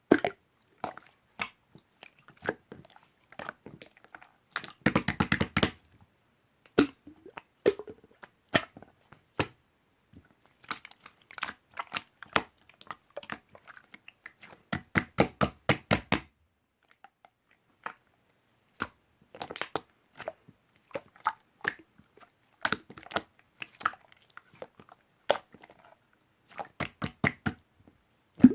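Slime being squeezed, pressed and stretched by hand, giving irregular runs of sharp popping clicks, with dense rapid crackling about five seconds in and again around fifteen seconds.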